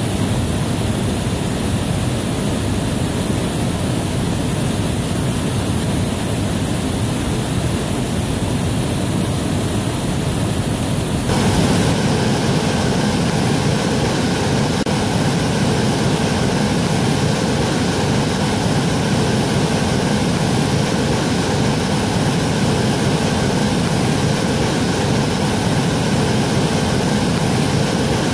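Waterfall: a loud, steady rush of falling water. About eleven seconds in the sound changes abruptly to a fuller rush, as another fall takes over.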